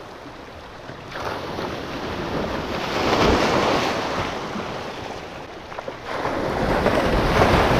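Ocean surf washing onto a rocky shore, swelling twice, with wind buffeting the microphone.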